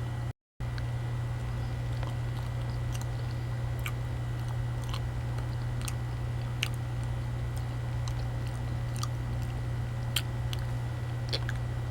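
A person chewing banana close to the microphone, with scattered small wet mouth clicks, over a steady low hum. The sound drops out completely for a moment about half a second in.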